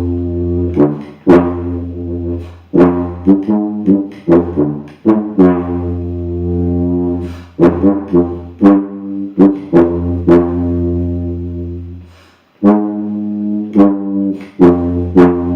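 Plastic B-flat tuba with rotary valves playing a passage from a band part: a run of low, firmly tongued notes, some short and some held for a second or two, with one brief pause for breath near the end. It sounds in a small room with poor acoustics.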